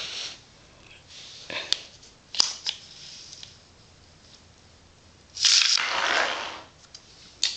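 Small magnets clicking together as the stacked magnet projectile is handled and set into the track's rails. Near the end comes a loud scraping rush lasting about a second as the projectile is launched along the magnetic rail track, then a sharp click.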